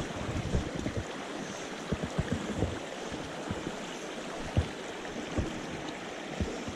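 Mountain stream water rushing steadily, with irregular short low thumps on the microphone.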